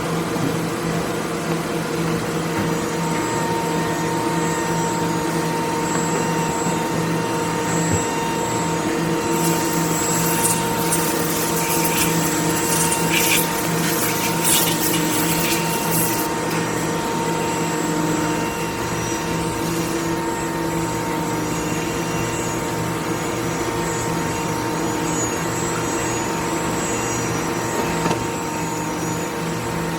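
Machine tool running with a steady motor hum. A spell of high hissing with clicks from about ten to sixteen seconds in marks the cutting.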